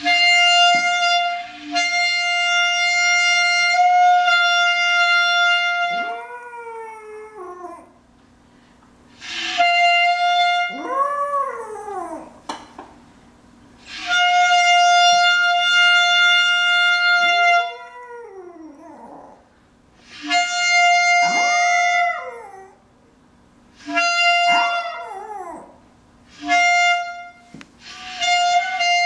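A clarinet plays long held notes at one steady pitch, and a small dog answers with howls that rise and fall in pitch. The two take turns about five times.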